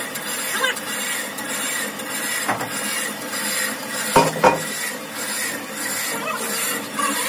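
Metal handling sounds as a heavy cast-iron truck brake drum is lifted and fitted into a lathe chuck: scraping and clattering of metal on metal, with two sharp clanks about four seconds in.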